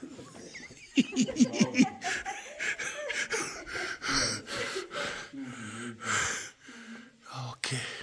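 A person laughing in a quick run of short bursts about a second in, followed by breathy exhalations and a few low murmured sounds.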